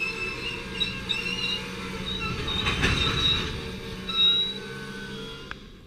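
Freight train of tank cars rolling past, with the steady rumble of the wheels on the rails. Short, high-pitched wheel squeals come and go over it, the loudest a little past four seconds in.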